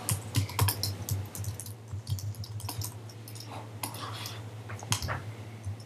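Typing on a computer keyboard: a run of irregular, quick key clicks over a steady low hum.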